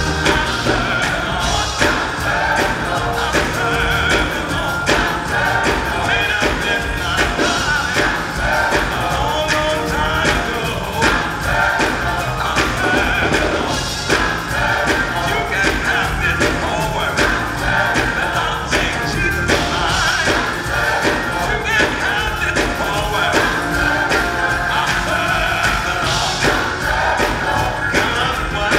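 Gospel choir and a lead singer singing over a live church band, with a steady beat and hand claps.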